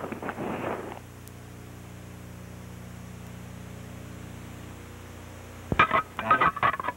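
Steady low electrical hum and hiss of an old film soundtrack. Near the end, music begins with short, sharp notes.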